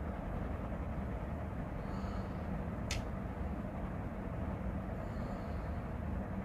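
Steady low background rumble with a hum, and a single sharp click about three seconds in.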